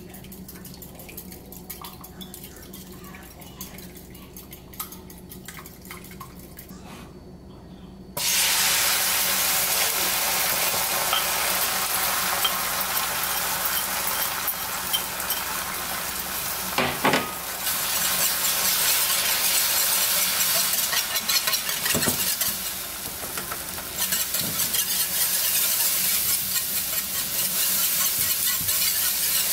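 Beaten eggs being whisked in a bowl with faint light clicks. About eight seconds in they go into a hot nonstick pan and a loud frying sizzle starts suddenly, going on as they are stirred and scrambled.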